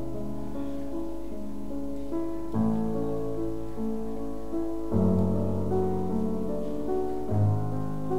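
Calm piano music: held chords under a slow stepping melody, with deeper bass notes coming in about two and a half seconds and five seconds in.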